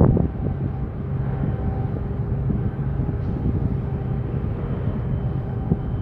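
Steady low engine drone with a faint steady hum above it, from a large container ship's machinery as it steams out of the harbour.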